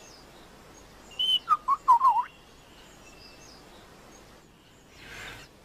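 Lyrebird singing a short phrase about a second in: a quick run of clicks and bending whistled notes lasting about a second.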